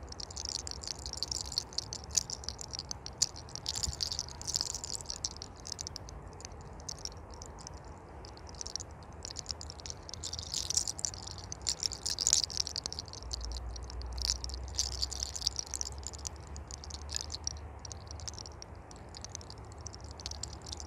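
Fingers rubbing and scratching through hair on the scalp in a head massage: a close, crackly rustling with scattered small clicks.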